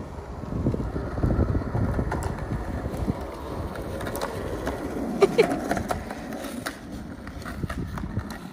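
Skateboard wheels rolling on asphalt: a steady low rumble broken by scattered clicks and knocks.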